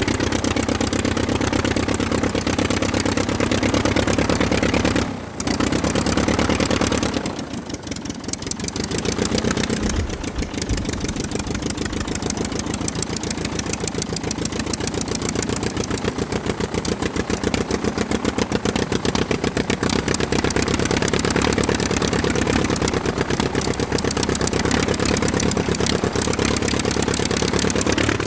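An engine running with a fast, even firing beat. It drops out briefly about five seconds in and dips for a couple of seconds around eight seconds in, then runs steadily again.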